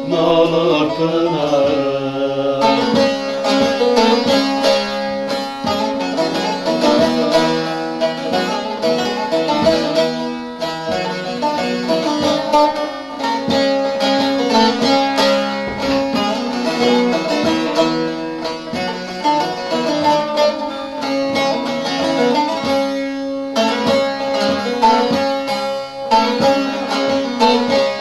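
Two bağlamas (Turkish long-necked saz) playing an instrumental interlude of fast plucked strumming over a steady drone. A man's singing voice ends a held sung line about two seconds in.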